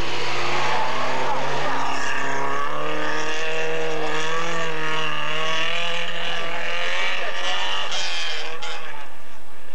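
Rally car engine running hard under acceleration, its note climbing over the first few seconds and then holding before it drops away about seven seconds in.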